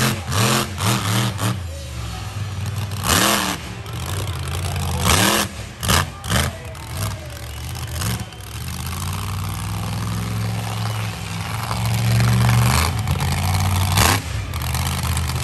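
Monster truck engine revving hard, its pitch swinging up and down in bursts, then holding at high revs. Several sharp bangs cut through it, loudest at the start, about three and five seconds in, and near the end.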